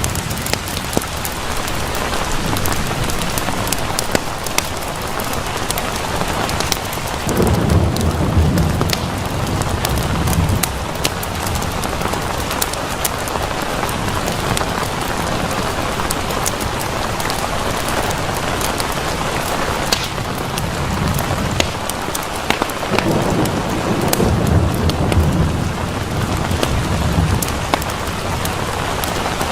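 Steady rain with scattered sharp drips and ticks, and two low rolls of thunder: one about seven seconds in and another near twenty-three seconds in, each lasting a few seconds.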